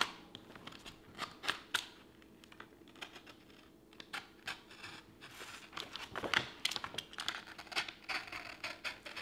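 Utility knife blade scraping through a large sheet of paper in short cutting strokes, with rustling of the sheet as it is handled. The strokes are quieter for a few seconds in the middle, then come thicker again near the end.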